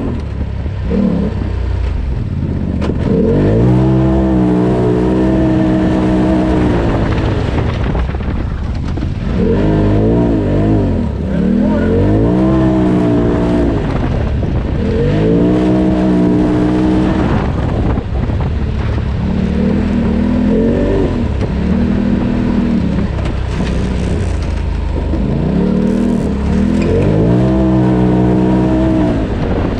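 Polaris RZR Turbo side-by-side's turbocharged twin-cylinder engine revving up and easing off again and again as it is driven hard along woodland trails, the pitch climbing and dropping every few seconds.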